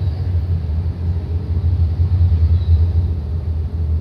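Low, uneven rumble with a faint hiss above it.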